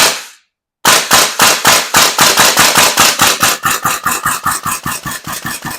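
VFC KAC M110K1 gas blowback airsoft rifle firing, extremely loud: a single shot, then after a short pause a long rapid string of shots at about six a second. Each shot is a sharp crack from the gas-driven bolt cycling.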